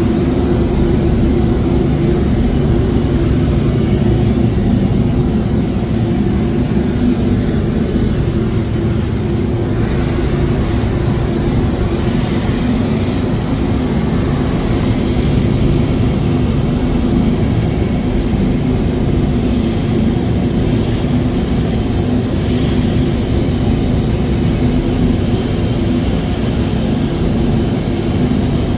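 Steady drone of a running engine, with a constant low hum and no change in speed.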